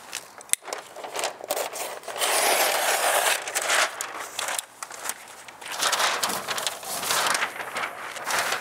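Tyvek HomeWrap house wrap crinkling and rustling as a roll of it is unrolled and handled on a concrete floor, with small clicks and scrapes, louder in two long stretches.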